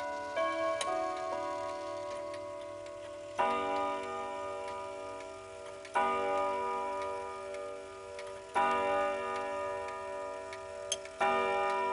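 Girod octagonal wall clock striking on its gongs: after a few ringing notes at the start, it strikes a full ringing chord four times, about two and a half seconds apart, each left to ring out. The movement's tick runs steadily underneath.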